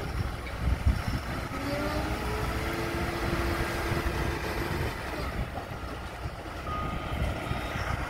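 Diesel engine of a telehandler running steadily, with a low knock about a second in. A reversing alarm starts up near the end.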